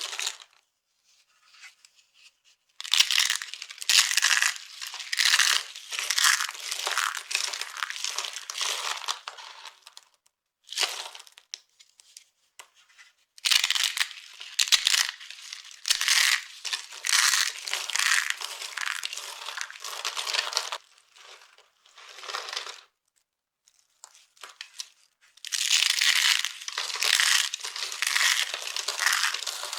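Dry soap being crushed, crunching and crumbling with dense crackling in spells of several seconds, separated by brief pauses and a few short single crunches.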